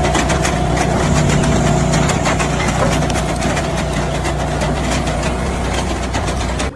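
An engine running steadily at idle, with a dense, fast rattle of ticks over its low hum; it starts and stops abruptly.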